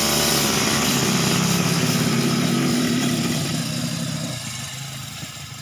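Backpack brush cutter's small engine running steadily at working speed while its cutting head trims shrubs and grass in a planter. The engine sound grows steadily quieter over the last couple of seconds.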